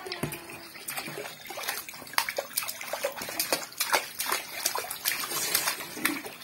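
Water splashing irregularly in a small inflatable paddling pool as children slap and kick at it, with water running in from a garden hose.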